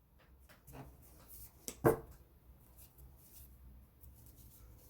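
Light rustling and soft taps of tarot cards being handled, with one sharper tap about two seconds in.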